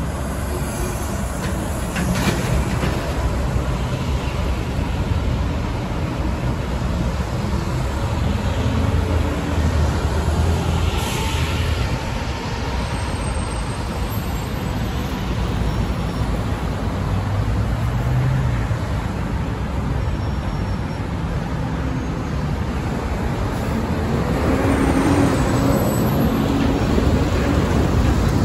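Diesel transit and coach buses running and moving through traffic, with a steady low engine rumble. The engine pitch rises and falls as buses pull away, once around a third of the way in and again near the end. There is a short hiss about eleven seconds in.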